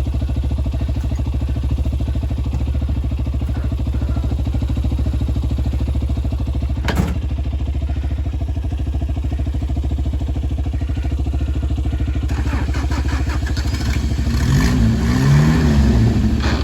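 Toyota 4x4 pickup engine idling steadily, with a single knock about seven seconds in. Near the end it is revved up and down twice as the driver tries to drive the stuck truck out of the canal.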